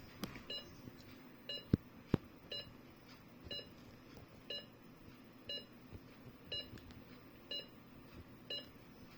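Philips M3046A Viridia patient monitor giving a short, even beep about once a second. Two sharp clicks come close together a little under two seconds in.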